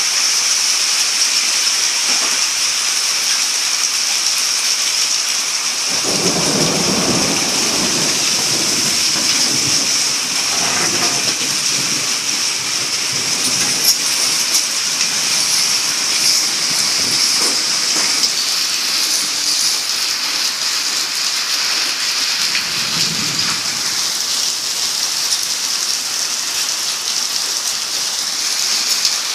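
Torrential rain falling steadily on the yard, a loud continuous hiss. Low rolls of thunder rumble under it about six seconds in, again around eleven seconds, and once more briefly later on.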